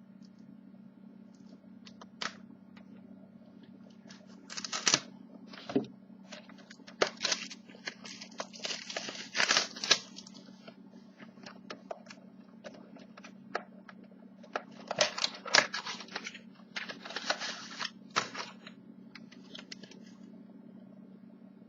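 A trading card box and its pack being opened by hand: wrapper tearing and crinkling in irregular bursts, with small clicks of handling, over a steady low hum.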